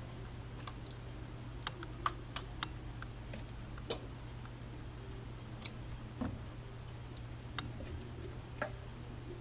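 A spoon clicking and knocking against the dishes while thick chicken-and-vegetable filling is scooped across, with a few soft wet squishes; light irregular clicks over a steady low hum.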